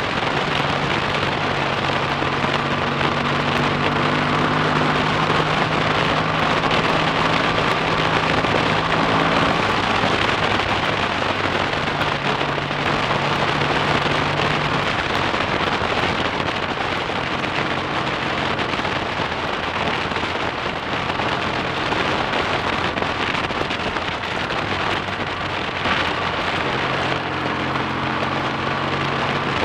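Freshly rebuilt BSA A65 Thunderbolt's 650 cc parallel-twin engine running while the motorcycle is ridden, under heavy wind rush on the handlebar-mounted microphone. The engine note holds steady for stretches and shifts pitch a few times as the speed changes.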